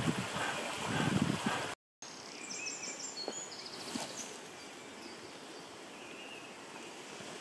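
Running water, then after an abrupt cut a quieter outdoor ambience with a short run of faint high chirps a little after the cut.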